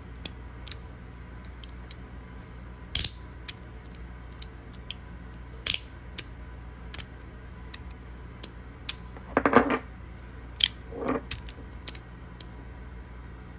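Magnetic fidget slider being worked by hand: its plates click sharply and irregularly as they snap into place under the magnets. There are two brief, louder sounds about two-thirds of the way through.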